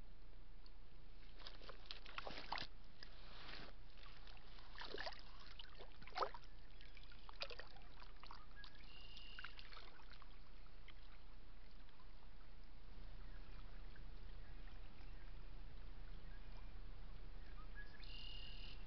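A beaver moving off into the water makes a scatter of splashes and rustles over several seconds, the sharpest about six seconds in.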